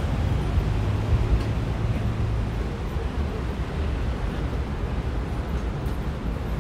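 City street traffic: a steady rumble of car engines and tyres. A low engine drone fades out about two and a half seconds in.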